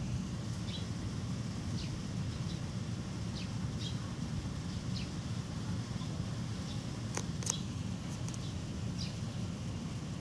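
Outdoor ambience: a steady low wind rumble on the microphone, with short, high bird chirps scattered throughout and two sharper ones about seven seconds in.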